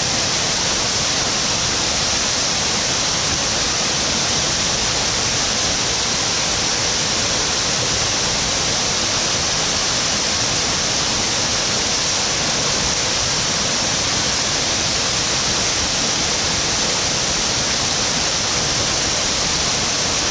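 Waterfall pouring: a steady, even rush of falling water with a bright hiss.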